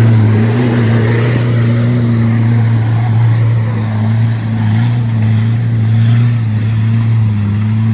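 Toyota 4x4's engine held at steady high revs under load as the truck drives up a deeply rutted, muddy track. The engine note wavers only slightly.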